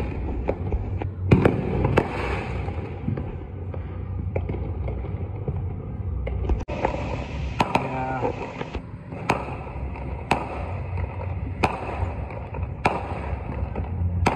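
Aerial fireworks going off across the neighbourhood: a continuous rumble of distant bangs and crackle, with sharp, louder bangs every second or so, most of them in the second half.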